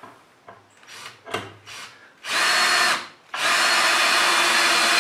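Cordless drill driving a screw into a wooden board: a few short bursts on the trigger, then a run of about a second, a brief pause, and a longer steady run of motor whine as the screw goes in.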